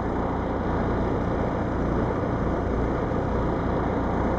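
1982 Cummins 290 turbo diesel bus engine idling steadily. Its mechanical variable timing (MVT) system has no air pressure yet, the condition behind its heavy start-up smoke.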